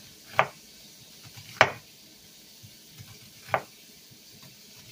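Knife slicing through an onion and striking a wooden cutting board: three sharp knocks a second or two apart, the second the loudest. Under them is a faint steady sizzle of chicken livers frying in oil.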